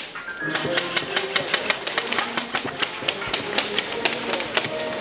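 Airsoft guns firing in an indoor arena: a rapid, irregular run of sharp clicking cracks, several a second, from shots and BBs striking hard surfaces.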